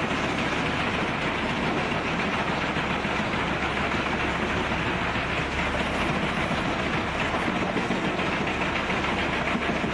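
Pezzolato PTH 1300/1500 wood chipper running and shredding logs: a steady, dense machine noise with a low engine drone underneath, even throughout.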